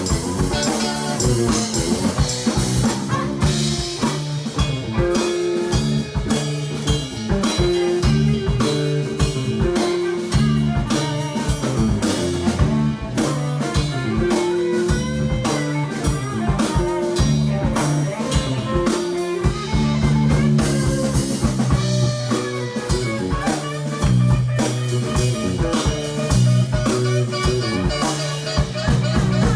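Live band playing an instrumental passage: electric guitar, bass and drum kit in a bluesy rock groove.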